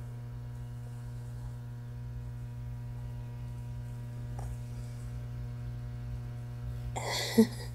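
Steady low electrical mains hum with a constant pitch.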